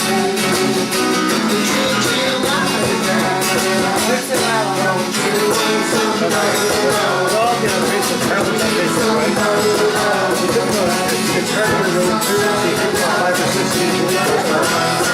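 Guitar playing with voices singing along, steady and unbroken throughout.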